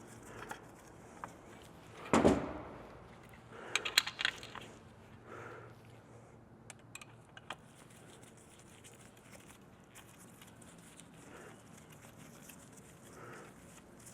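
Metal parts and small tools being handled while a chainsaw muffler is put back together: a loud clunk about two seconds in, then a quick run of sharp metallic clicks, and a few light ticks after.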